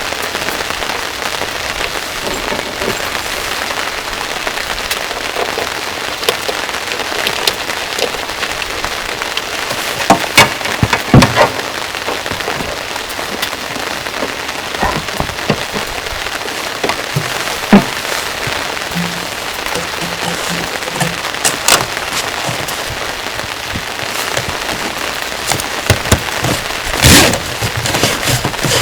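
Steady rain falling in a forest, a continuous hiss, with single heavy drops landing in loud sharp taps a handful of times, the loudest about ten, eleven, eighteen, twenty-two and twenty-seven seconds in.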